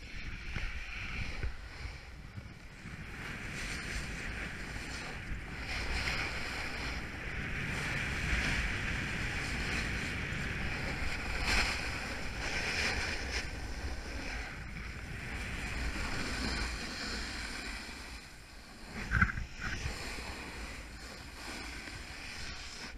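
A snowboard sliding and carving over snow, a steady hiss and scrape mixed with wind buffeting the microphone. A few sharp knocks come about nineteen seconds in.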